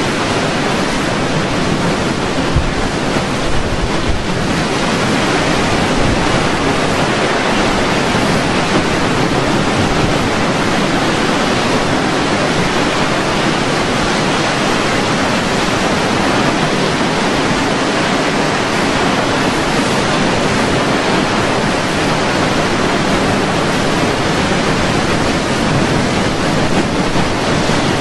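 Steady, loud rushing noise of a hurricane: storm wind and surf blending into one even rush, with no let-up.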